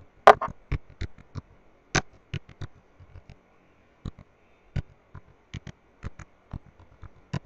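Typing on a computer keyboard: irregular keystroke clicks, a few a second, with short pauses between bursts.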